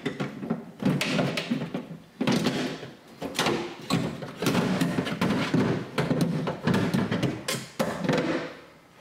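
Power window regulator rail and motor clunking and scraping against the sheet-metal inner door panel as the assembly is worked out through the door's access hole: a run of knocks and rattles.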